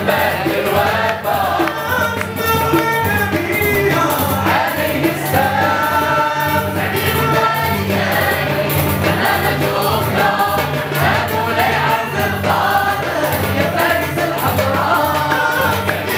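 Moroccan Andalusian al-Āla music: a chorus of men and women sings together over an ensemble of oud, violins played upright and rebab, with a steady pulse underneath.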